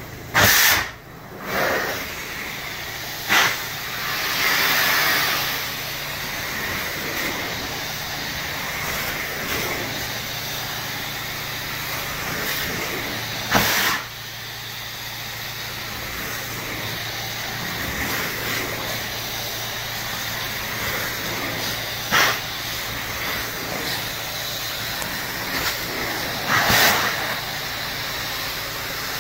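Carpet-cleaning extraction wand pulling air and water through its vacuum head as it is stroked across carpet: a steady rushing hiss, with short, louder whooshes several times.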